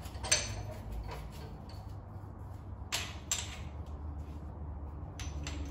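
Scattered light knocks and clicks of metal tools and parts being handled on a workbench around a vise: one about a third of a second in, two close together around three seconds, and two more near the end. A low steady hum runs underneath.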